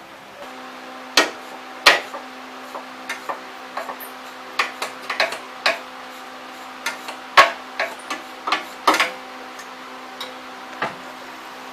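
Irregular sharp clinks and knocks of metal being handled, the loudest about a second, two seconds, seven and a half and nine seconds in, over a steady hum that starts about half a second in.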